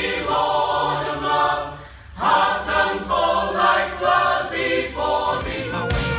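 A mixed choir of men and women singing together, with a short break about two seconds in.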